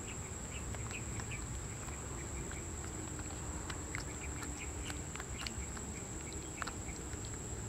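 Small wet clicks and smacks of a baby macaque suckling milk from a bottle, over a steady high insect drone and a low rumble.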